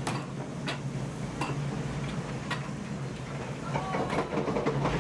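Steady low rumble of the moving train heard inside its kitchen car, with scattered sharp clicks and knocks, and a cluster of short clinks near the end.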